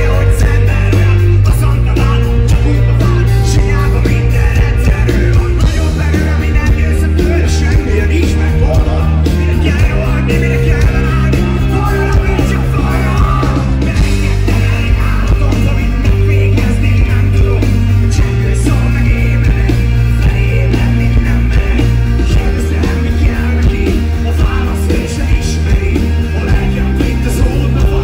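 Live rock band playing loud, with a male singer over drums, bass guitar and guitar and a heavy bass line.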